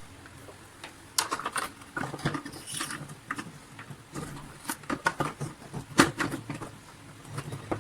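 Plastic vacuum cleaner housing being handled and fitted back together: irregular clicks and knocks of plastic parts, the sharpest about six seconds in.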